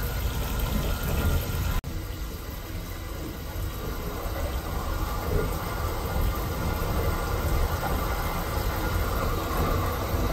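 Steady low rumble of the Kintetsu Hinotori express train running, heard from inside its lavatory, with a brief dropout about two seconds in.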